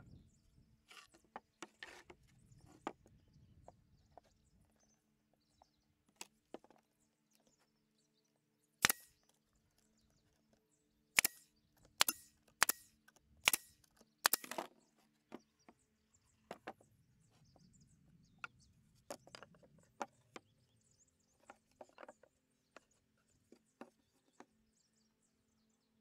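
Ryobi nail gun firing nails into plywood birdhouse panels: a burst of six sharp shots near the middle, mostly under a second apart, with lighter knocks of the wood being handled before and after.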